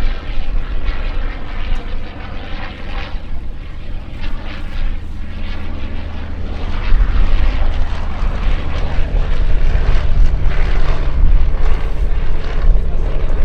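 Piston engines of a Fokker DR.I triplane and a Fokker D.VII biplane flying a display, a steady propeller drone that grows louder about seven seconds in.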